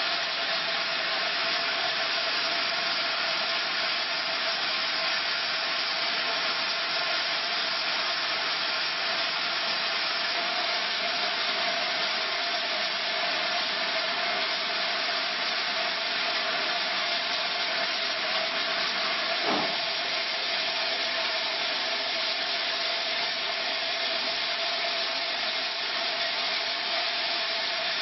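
Steam hissing steadily from a standing steam locomotive, with a faint steady tone in it. One brief knock about two-thirds of the way through.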